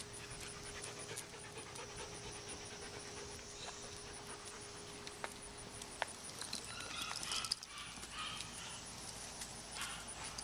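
A dog panting softly, with a few faint clicks.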